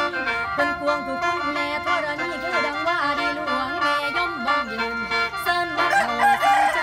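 A khaen, the Isan bamboo free-reed mouth organ, plays held drone chords while a woman sings lam klon over it, her voice gliding and bending through ornamented phrases.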